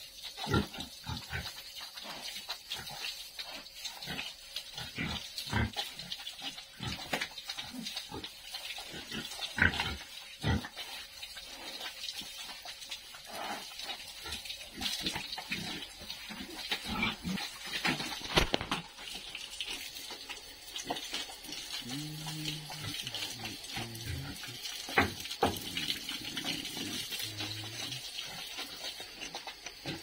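Pigs grunting over and over, with a run of deeper, pitched grunts in the last third. Under them is the hiss and splash of a hose spraying water over the pigs and the wet pen floor.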